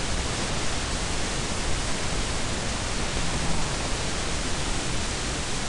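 Loud, steady hiss of recording noise, with no other clear sound.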